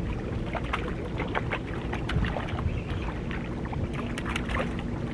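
Small sea waves lapping and splashing against shoreline rocks, with wind on the microphone; a faint steady hum joins about four seconds in.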